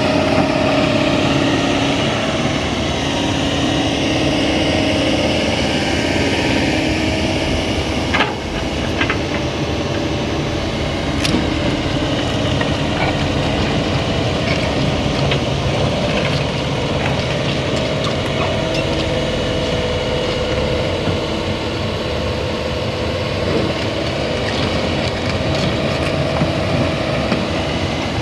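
Heavy diesel machinery running steadily, with a few short knocks, one about eight seconds in and one about eleven seconds in.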